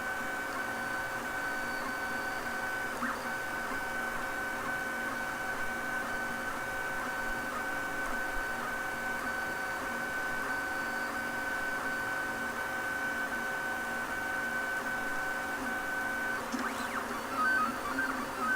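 MendelMax 1.5 3D printer's stepper motors running, with a steady high whine. Near the end the whine changes to a stuttering run of short tones.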